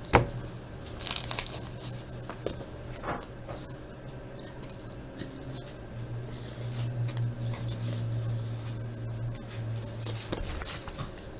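Trading cards and foil pack wrappers being handled: light rustling and crinkling with scattered soft clicks. A low steady hum runs underneath, louder in the middle, and stops near the end.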